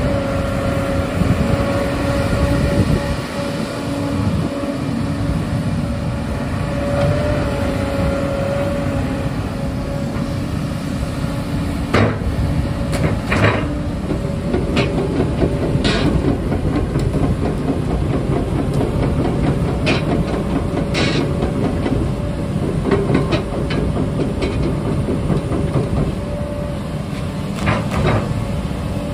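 Hyundai R220-9S crawler excavator's Cummins diesel engine running steadily as the boom and arm are worked. From about twelve seconds in, sharp metal clanks come every few seconds.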